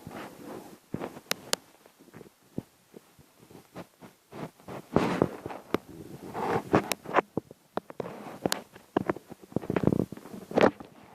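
An elderly man snoring: irregular rough, rattling breaths of about half a second each, with a number of sharp clicks in between.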